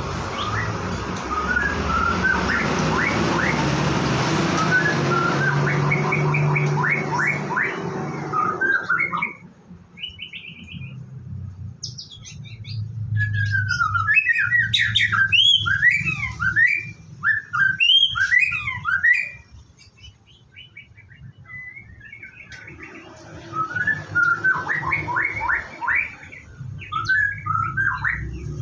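White-rumped shama (murai batu) singing: varied bursts of quick rising and falling whistled notes, with short pauses between the phrases. A steady hiss runs under the song for the first third and again near the end.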